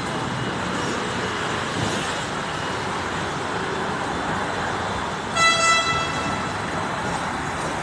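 Steady rumble of a double-decker electric tram running along its rails amid street traffic. About five seconds in, a horn gives a short double toot lasting under a second.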